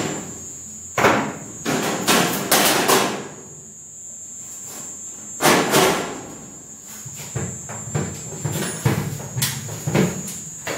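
Hammer knocking on a steel kitchen wall cabinet while it is fitted to the wall: several sharp knocks in the first three seconds and two more about halfway, then lighter knocks and clatter as the cabinet is shifted by hand.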